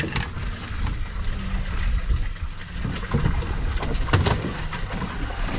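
Wind buffeting the microphone on an open boat, a steady low rumble with a hiss of wind and water above it, broken by a few sharp knocks about three and four seconds in.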